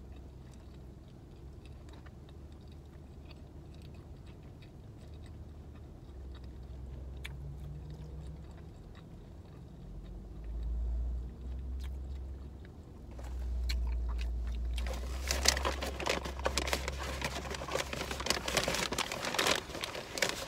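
Mouth chewing a bite of hot dog, with faint wet clicks over a low rumble. About fifteen seconds in, loud crackling rustle of a paper takeout bag being rummaged through.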